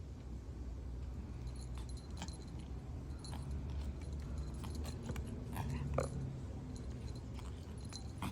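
Light rustling with scattered small clicks and faint metallic jingles over a low steady rumble.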